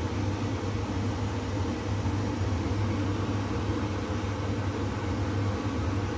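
Steady hum and fan noise of a running kitchen appliance, cutting off suddenly at the very end.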